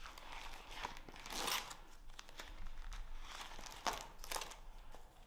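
Paper rustling as scrapbook pages of magazine clippings are handled and turned, in several soft swishes, the clearest about a second and a half in.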